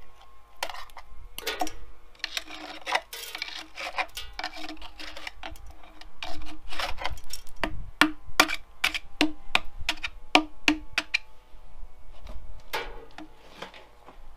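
A hand tool scraping and tapping on steel. A stretch of scratching comes first, then a run of sharp, ringing metallic taps, two or three a second, with a few lighter taps near the end.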